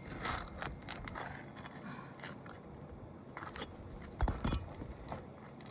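Scraping and clinking of hand tools and loose nails on asphalt roof shingles as the shingles are lifted and their nails pulled, with one louder knock about four seconds in.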